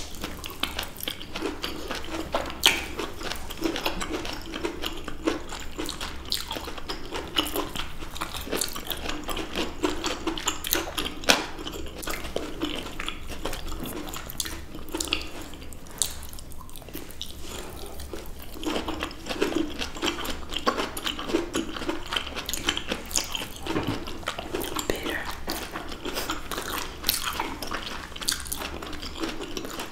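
Close-miked eating of juicy fruit, mainly blood orange wedges: many small wet bites, squelches and chewing clicks in quick succession.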